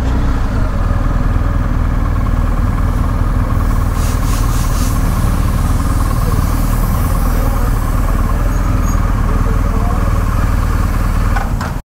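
Motorcycle engine and wind rush while riding, loud and steady, cutting off abruptly just before the end.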